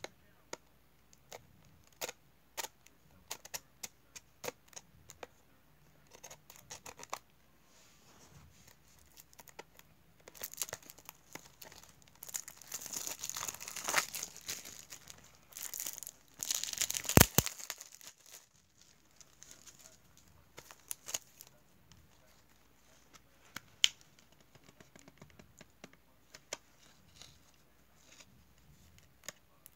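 Cellophane shrink-wrap being picked at, torn and crinkled off a CD jewel case. Scattered clicks and taps come first, then a long stretch of tearing and crinkling through the middle with the loudest rip just past halfway, then only occasional clicks near the end.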